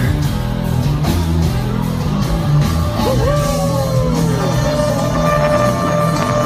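Rock band playing live and loud in a concert hall, with vocals over a heavy low end. About three seconds in, a held note slides up and then slowly falls away.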